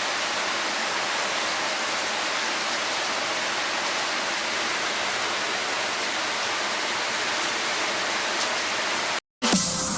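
Heavy rain falling steadily as an even hiss, cutting off suddenly about nine seconds in.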